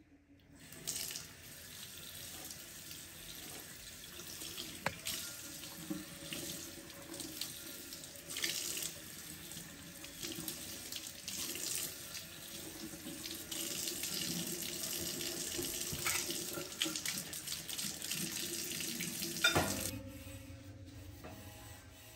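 Kitchen tap running into a sink while a clear plastic microwave food cover is rinsed under it, the water splashing off the lid with small knocks of plastic against the sink. The water stops suddenly near the end.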